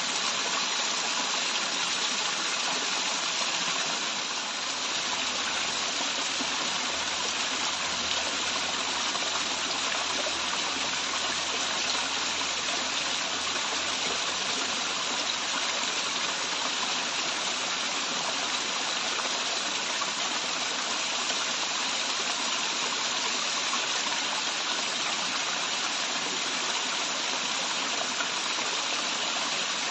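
Waterfall: water pouring and rushing steadily in a dense, even hiss that does not let up.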